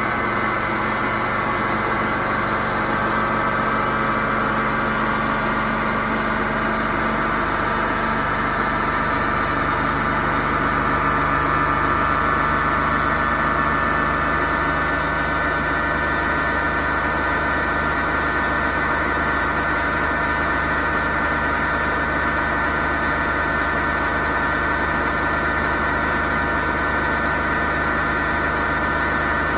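Hoover VHD 9163 ZI washing machine on its spin cycle, a steady, loud drone with a whine in it. It is that loud because the drum bearings are broken.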